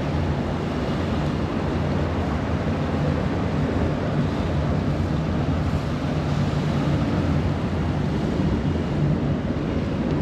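Wind buffeting the microphone over the rush of turbulent tidal-current water, with a steady low drone from the boat underneath.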